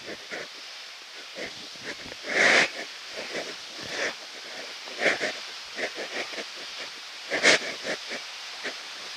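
Footsteps going down steep concrete steps, irregular and a few to the second, over a steady hiss of falling water. Two louder whooshes come about five seconds apart.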